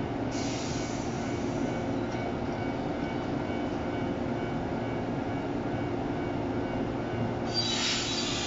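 Shinano Railway 115 series electric train humming steadily while stopped at the platform. A hiss of compressed air starts about a third of a second in and fades after a second or so; a louder hiss starts near the end.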